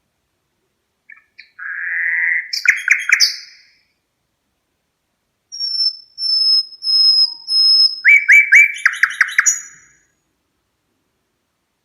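Red-rumped parrot calling in two phrases: first a buzzy chattering call, then a song that starts with a high, held whistle and breaks into a quick run of repeated trilled notes.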